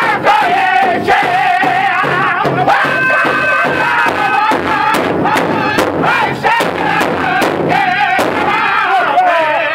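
Powwow drum group singing an intertribal song: several men singing together over a steady beat of drumsticks striking a large hide powwow drum. They hold one long note a few seconds in.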